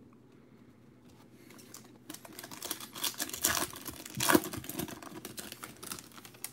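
Foil wrapper of a baseball card pack being torn open and crinkled by hand, a dense crackle that starts about a second and a half in and fades out near the end.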